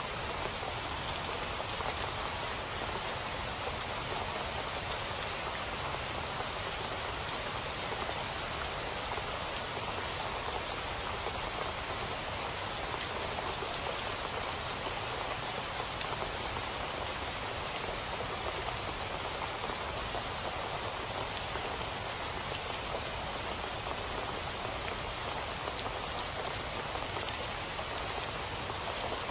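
Heavy rain falling steadily, its drops splashing into water pooled on a flat surface.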